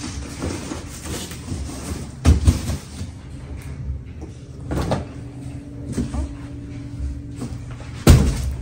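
Cardboard boxes being handled and set down: dull knocks and thumps, two close together about two seconds in, a few lighter ones after, and the loudest near the end.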